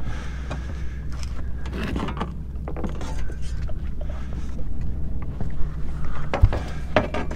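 Scattered knocks, clicks and rattles of gear being handled on a fiberglass boat deck, over a steady low rumble.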